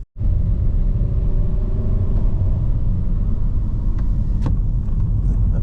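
Car on the move: a loud, steady, low rumble of engine and road noise, with a faint rising engine tone early on and two light clicks about four seconds in.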